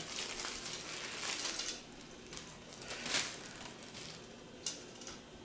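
Clear plastic bag crinkling and rustling as a small toy slot car is pulled out of it. A steady rustle comes first, then a few separate sharp crinkles.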